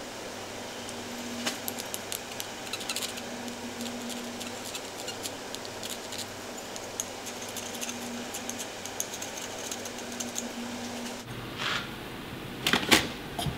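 Light metallic clicks and scratches of calipers and dividers marking bolt-hole centres on a small aluminium plate, over a steady hum. A few louder clacks near the end as the aluminium plate is handled on the metal bench.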